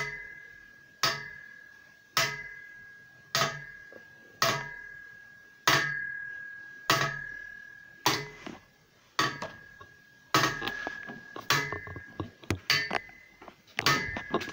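Repeated knocks on something metal that rings briefly after each hit, steady at about one a second, coming faster and less evenly near the end.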